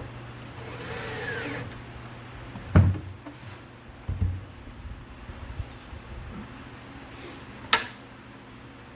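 An electric drill runs briefly, its whine shifting in pitch, then wooden knocks and thuds as the drawer parts are handled, the loudest about three seconds in, with a sharp click near the end.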